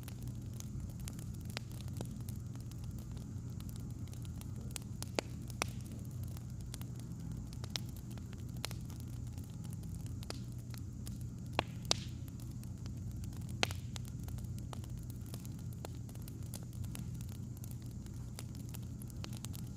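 Wood fire crackling, with scattered sharp pops over a steady low hum.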